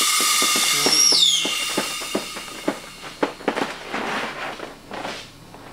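Snowpulse Lifebag avalanche airbag at the end of its inflation: a loud rush of air with a whistling tone that ends about a second in with a high falling whistle. It is followed by irregular crinkling and rustling of the inflated nylon bag as it settles and is handled.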